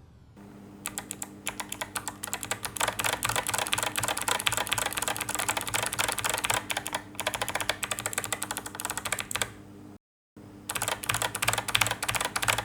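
Fast typing on a keyboard: quick runs of keystroke clicks that break briefly about seven seconds in, drop to dead silence for a moment about ten seconds in, then resume, over a steady low hum.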